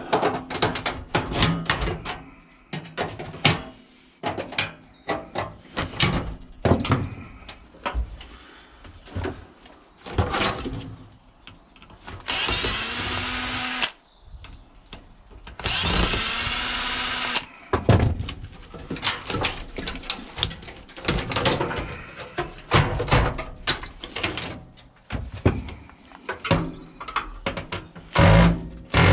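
Knocks, taps and clanks of hand tools working on a scrap household appliance being stripped for metal. A power drill runs twice near the middle, each run about two seconds long and starting with a rising whine.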